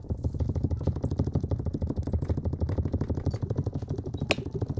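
Rapid, even scratching close to a sensitive ASMR microphone, many strokes a second, like fingers scrubbing for hair-washing sounds. One sharper click comes about four seconds in.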